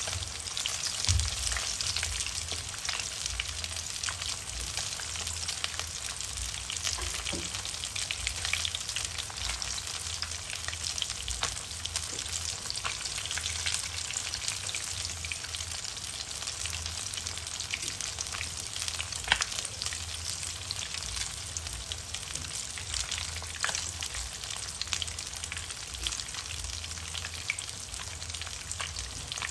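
Oil sizzling steadily around a whole fish shallow-frying in a nonstick pan, with scattered small pops and crackles.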